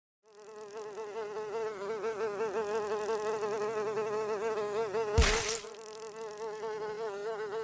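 A flying insect buzzing: a steady buzz whose pitch wavers up and down as it flies about, starting just after silence. About five seconds in, a brief, louder burst of noise cuts across it.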